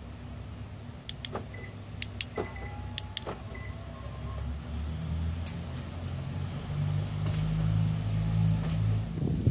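Hyundai Sonata (LF) door locks clicking in quick pairs as the key fob is pressed lock–unlock–lock. Then the power window motors hum steadily for about five seconds as the windows lower to a vent opening, triggered by that fob sequence through an XO Evolution window module.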